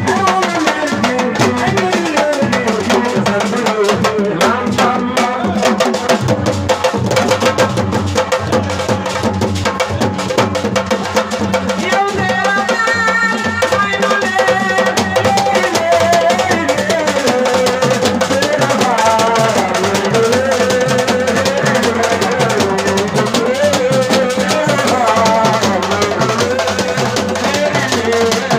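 Devotional chant: a singing voice winding up and down in long melodic phrases over drums and percussion keeping a steady beat.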